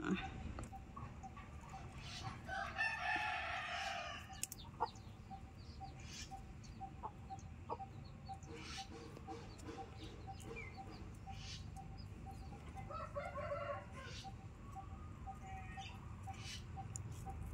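A rooster crowing twice: a long crow about three seconds in and a shorter one near the end, with a faint steady ticking in the background.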